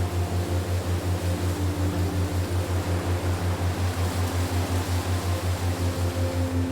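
Relaxation soundtrack: a low hum pulsing evenly about six times a second under a steady wind-like hiss, with a few faint held tones above it.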